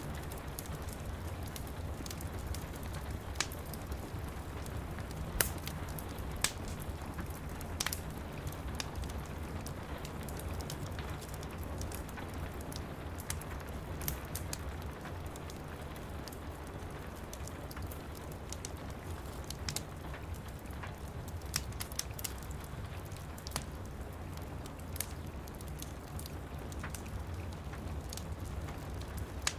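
Steady rain pattering against window glass over a low, even rumble, with a wood fire crackling and giving scattered sharp pops every second or two.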